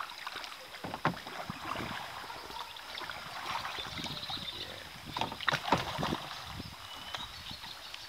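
Kayak paddles dipping and pulling through river water, an irregular run of splashing strokes, the loudest a few seconds in.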